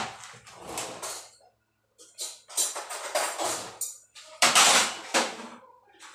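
Dishes and a serving tray clattering as they are handled, in a string of short, sharp bursts, loudest at the start and again about four and a half seconds in.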